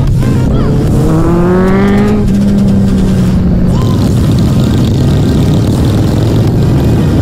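Motorcycles riding in a group, with heavy wind rush and engine rumble on the bike-mounted microphone. About a second in, an engine revs up with a rising note, then holds a steady note for a couple of seconds.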